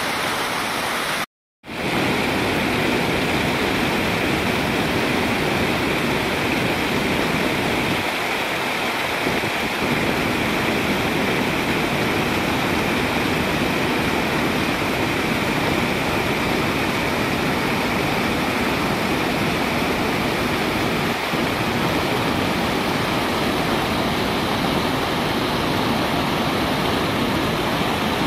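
Floodwater pouring and splashing over a dam's stepped concrete spillway: a steady, even rush of falling water. The sound cuts out completely for a moment about a second and a half in, then comes back at the same level.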